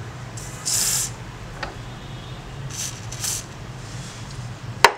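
Aerosol lubricant sprayed through a red extension straw onto a rusted scissor pivot: one longer hiss, then two short hisses close together. A sharp click near the end is the loudest sound.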